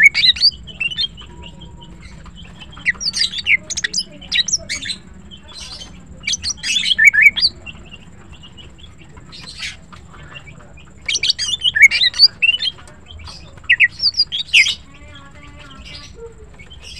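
Female green leafbird (cucak ijo) singing in about six bursts of quick, high, sweeping chirps, with short pauses between them.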